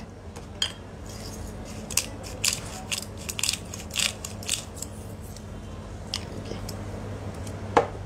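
Hand-twisted pepper mill grinding black peppercorns: a run of dry, crackling clicks, thickest in the middle, easing off a couple of seconds before the end.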